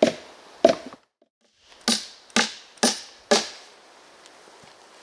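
Hammer blows on timber while a wooden balance-scale frame is being built: two sharp strikes near the start, then four more in a steady run of about two a second.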